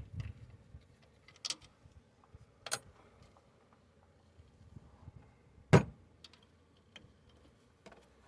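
Scattered metallic clinks and knocks of hand tools against metal while an alternator is being unbolted: a few sharp taps, the loudest just before six seconds in.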